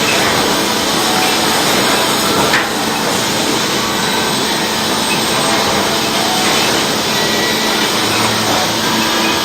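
Sawmill saw cutting a log into lumber: a loud, steady sawing noise, with one brief knock about two and a half seconds in.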